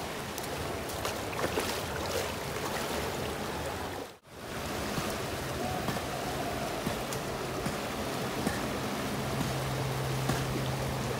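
Swollen, fast-flowing river rushing steadily, with a brief break about four seconds in.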